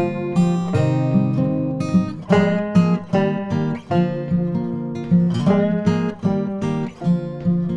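Background music: acoustic guitar strummed and picked, in a country or bluegrass style.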